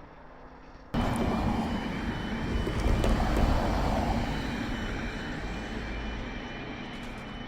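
A level crossing's warbling yodel alarm sounds while a train passes. The train's rumble starts suddenly about a second in, swells for a couple of seconds and then slowly dies away.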